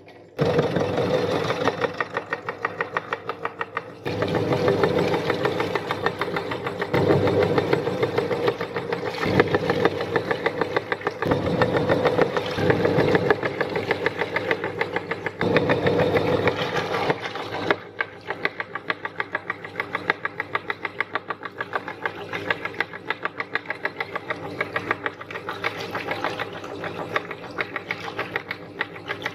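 Meat grinder running as it grinds grapes, with a fast, regular knocking rhythm over a steady mechanical noise. It gets noticeably quieter about two-thirds of the way through.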